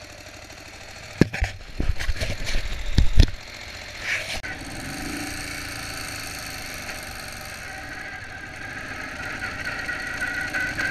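Ural Tourist motorcycle's flat-twin engine running, with a series of loud knocks about a second in; the bike then pulls away and the engine runs steadily as it is ridden, slowly getting louder. Shortly before, the riders said one cylinder was not firing at all.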